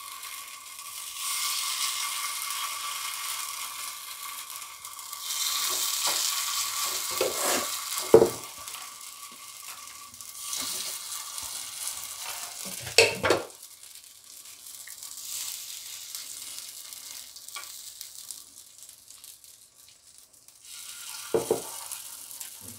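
Idli batter sizzling in the hot, oiled moulds of an appe pan, the hiss swelling each time a fresh spoonful goes in. A couple of sharp knocks, about 8 and 13 seconds in.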